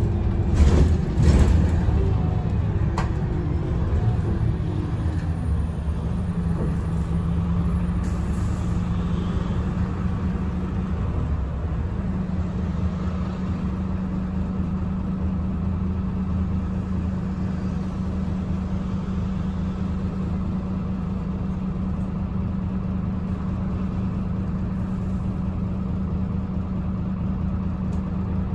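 Irisbus Agora Line city bus with a Voith automatic gearbox, its diesel drivetrain heard from inside the passenger cabin as a continuous low hum. A falling whine runs through the first few seconds, with a brief louder clatter about a second in, then a steady hum tone holds for the rest.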